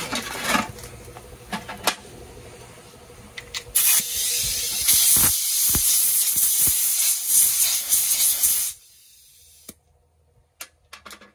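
A few short knocks and clicks. About four seconds in comes a loud hiss of compressed air from a gun on an air-compressor hose, lasting about five seconds before it cuts off sharply.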